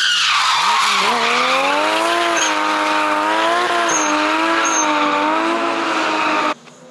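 Nissan Skyline drifting: tyres squealing over a high-revving engine that dips about half a second in, climbs, then holds high revs with small rises and falls. The sound cuts off suddenly near the end.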